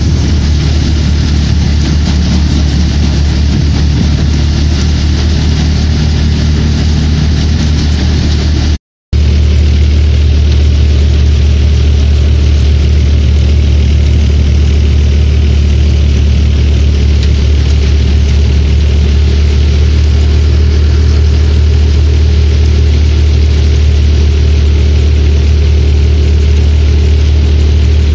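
Tractor-driven barley thresher running at a steady speed: a strong low engine hum under the noise of the threshing drum and fan, loud and unchanging, with a momentary break in the sound about nine seconds in.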